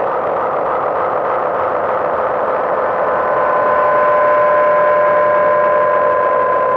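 Background music: a sustained synthesizer drone that swells slightly, with a steady held tone joining about halfway through.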